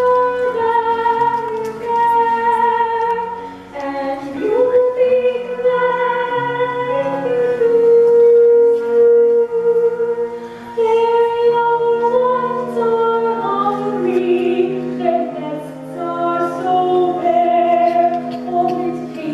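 A woman singing a slow ballad in long held notes with vibrato, over sustained instrumental accompaniment.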